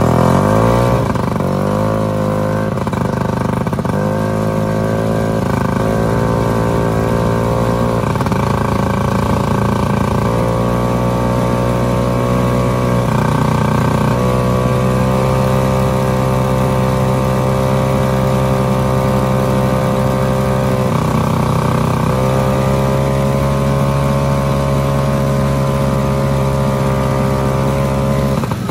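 A 1967 Bolens Diablo Rouge's engine running under load as the machine is ridden. It revs up in the first second, then holds a steady pitch that steps up or down every few seconds, with a long even stretch in the second half.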